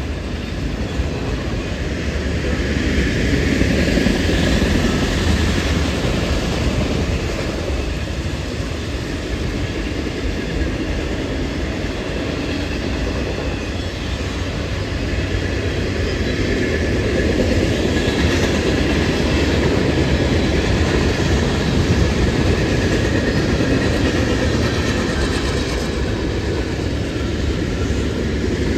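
Train running past, a steady rumble with rail and wheel noise that swells about four seconds in and again past the halfway point.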